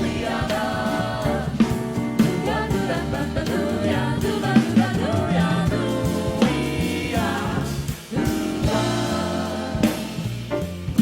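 A vocal group singing in close harmony over a jazz band accompaniment with bass and drums.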